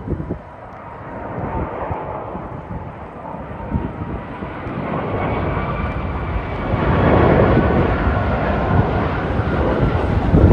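Airbus A330-343 airliner on final approach with its Rolls-Royce Trent 700 turbofans running, a jet rumble with a faint whine. It grows louder as the plane passes close and is loudest about seven seconds in.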